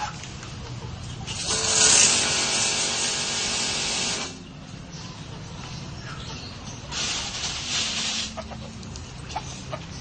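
Two bursts of hissing spray, a loud one of about three seconds and a shorter, weaker one a few seconds later, with chickens faintly in the background.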